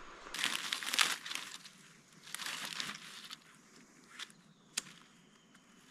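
Dry brush rustling and crunching in two spells of about a second each, then two short sharp snaps near the end.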